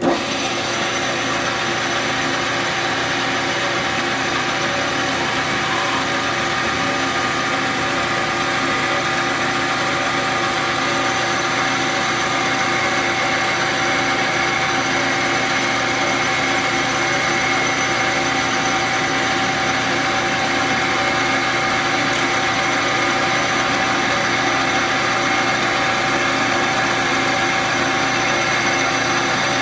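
Metal lathe running steadily with a steady whine of several held tones while a twist drill in the tailstock chuck drills a second hole into a bolt turning in the chuck.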